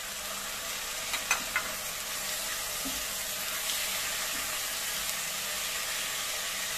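Raw chicken pieces sizzling in hot oil in a pot, with onion, while being stirred with a silicone spatula. There are a few light clicks about a second in.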